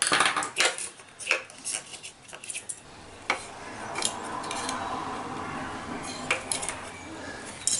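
Small hard headphone parts, a loose metal plate among them, clicking and clinking as they are handled, with a quieter stretch of scraping and rustling in the middle.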